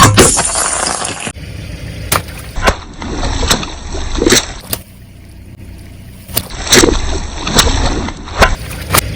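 Soda bottles and cans being crushed under a car's tyres: a string of sharp cracks and crunches at irregular intervals, with fizzy drink gurgling and splashing out.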